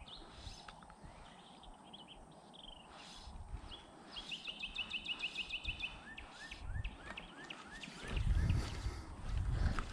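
Birds singing along a creek: short repeated chirping notes and a fast, even trill lasting about two seconds. In the last two seconds, low rumbling and knocking from movement close to the microphone is louder than the birds.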